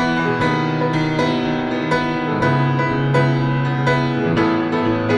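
Grand piano playing a worship-song accompaniment of held chords, re-struck about twice a second. The chord changes about halfway through.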